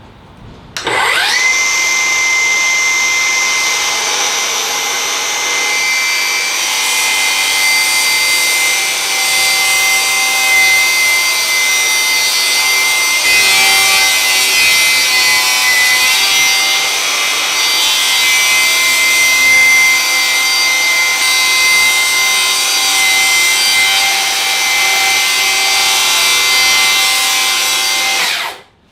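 Cordless circular saw spinning up about a second in and ripping a long cut through wood, its motor whine holding a steady pitch under the noise of the cut, then stopping abruptly near the end.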